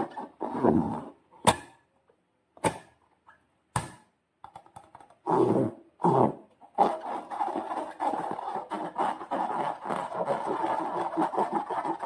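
Slime handled by hand: a couple of wet squelches and a few sharp sticky snaps, then about five seconds of continuous fine crackling.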